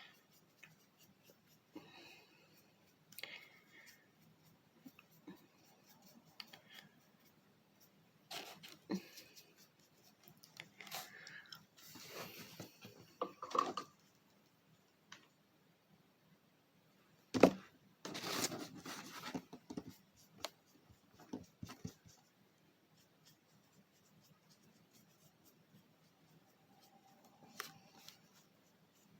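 Painting and handling craft supplies at a table: scattered soft brush scratches, rustles and light taps, with one sharp knock a little past the middle as something is set down.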